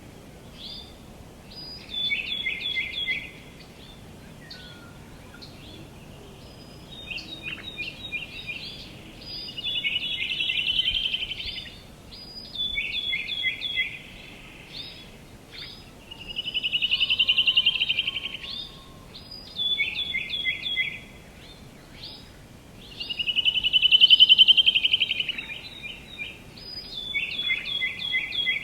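Songbird singing: short high phrases of quick repeated notes every few seconds, with a longer rapid trill every few phrases, the loudest trill near the end. A faint steady outdoor background hiss runs beneath.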